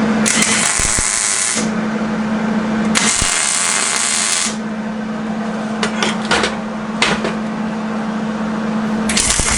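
Angle grinder working on steel: the motor runs free with a steady hum, then three times the wheel bites the metal and a loud grinding hiss takes over for a second or so, notching the transmission crossmember.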